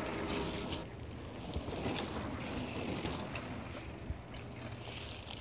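Mountain bike riding past close by on a dirt trail, its tyres rolling over packed earth and dry leaves, with scattered clicks from the bike.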